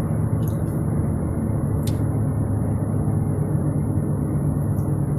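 Steady road and engine rumble heard inside a moving car's cabin, with a few faint ticks.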